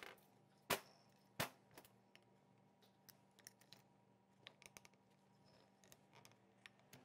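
Light, sharp clicks and taps against near silence: a screwdriver and metal parts knocking on a Honda Shadow VT600 carburetor as a hose is worked off it. Three clear clicks come about two-thirds of a second apart at first, then scattered fainter ticks follow.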